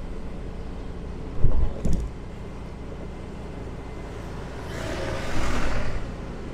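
A motorbike engine runs steadily at low road speed, with road noise. Two short low thumps come about a second and a half in. Near the end there is a swell of noise as oncoming traffic passes.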